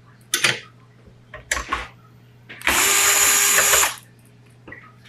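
Cordless drill driver spinning for about a second with a steady motor whine, backing a screw out of the fuser unit's frame. A few light clicks come before it.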